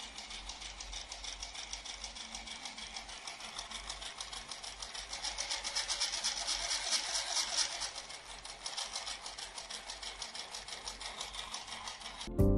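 Plastic model of a single-cylinder diesel engine running, its flywheel spinning, making a fast, even mechanical clatter. It grows louder about five seconds in and eases back about three seconds later.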